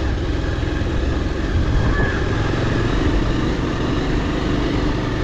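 Motorcycle engine running steadily while riding over a rough dirt road, heard from the rider's onboard microphone.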